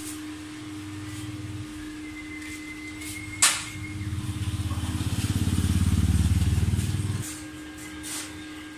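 A motor vehicle engine runs with a low, fast-pulsing drone that swells to its loudest in the middle and stops abruptly about seven seconds in. A steady low hum sits under it, and there is a sharp click about three and a half seconds in.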